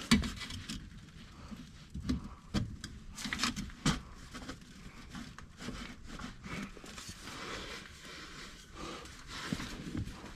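Worm-gear hose clamps being handled and fitted onto the perforated end of a titanium exhaust pipe: irregular light metallic clicks and knocks over rustling, a few sharper knocks in the first four seconds.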